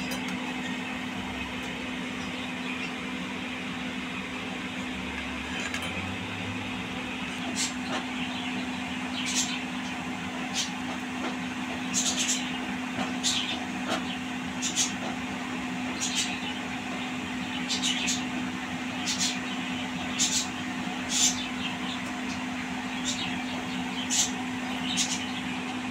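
Gulab jamun dough balls deep-frying in hot oil in a kadhai: steady sizzling over a constant low hum. From about eight seconds in, sharp clicks come every second or so while the balls are stirred with a spatula.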